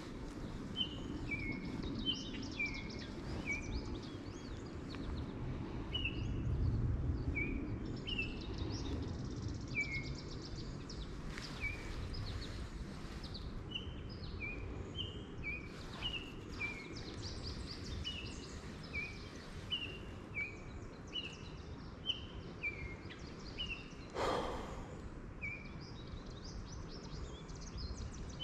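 A songbird singing over and over, each phrase a pair of short falling notes, roughly one phrase a second, over steady low outdoor background noise. About 24 seconds in there is one brief louder noise.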